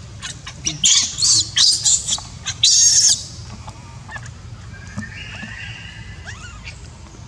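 Baby macaque crying: a rapid series of shrill screams that stop about three seconds in, after which only faint sounds remain.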